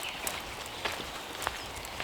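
Footsteps of a person walking on a forest path with dry leaves on the ground, three steps at an even pace.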